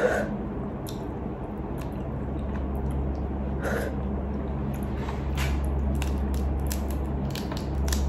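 Cooked crab being picked apart by hand: small clicks and snaps of shell, with wet mouth sounds of sucking fingers and chewing, over a steady low hum.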